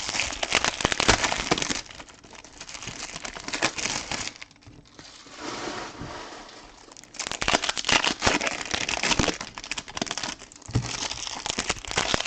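Trading-card pack wrappers crinkling as they are handled and opened, in dense crackly bursts; quieter for a stretch in the middle, louder again from about seven seconds in.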